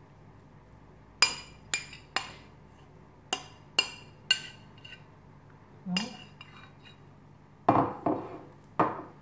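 A metal fork clinking and scraping against a plastic container as tuna is knocked out of it: about ten sharp clinks at uneven intervals, the last few near the end a little longer.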